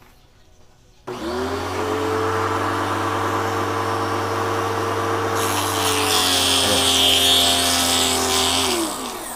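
Kawasaki HPW3 electric pressure washer's motor and pump switched on about a second in, running with a steady hum while priming with no hose attached, to bleed air out of the newly replaced pump. About halfway a hiss of water spurting from the outlet joins. Near the end the machine is switched off and winds down, its pitch falling.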